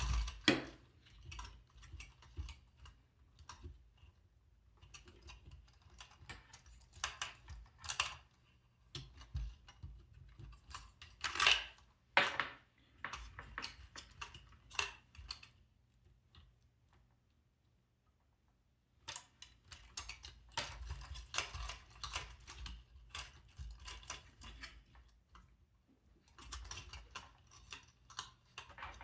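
Small plastic and metal parts of a robot kit being handled while wires are pulled out of it: irregular clicks, taps and clatters, the loudest about twelve seconds in, with a short lull a little past the middle.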